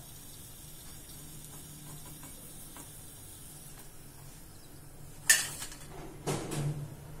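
Perforated metal slotted spoon clanking sharply against metal cookware a little after five seconds in, then clattering again about a second later, over a faint steady sizzle of hot frying oil.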